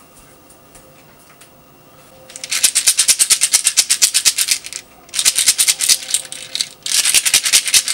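Pills rattling inside a small white plastic pill bottle shaken hard, in three quick bouts of about ten shakes a second with short pauses between.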